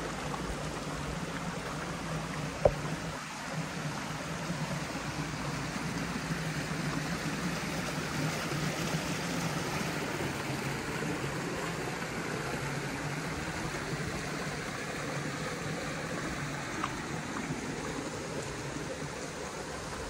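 Shallow stream running over rocks: a steady rushing and trickling of water, with one sharp click a little under three seconds in.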